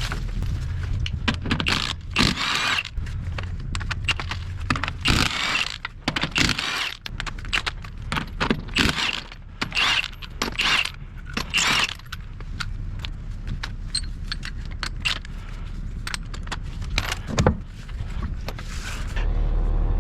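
Irregular metallic clinking and rattling with scraping, as metal tools or gear are handled, over a steady low rumble.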